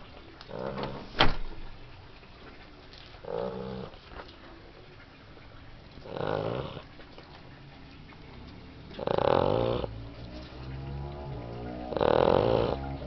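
A sleeping puppy snoring, five snores about every three seconds, the later ones louder. A single sharp click about a second in.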